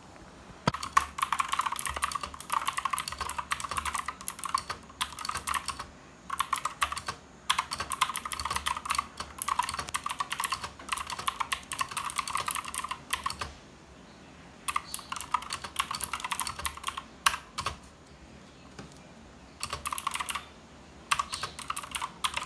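Typing on a Marvo Scorpion KG901 tenkeyless mechanical keyboard with clicky blue switches: fast runs of key clicks broken by short pauses.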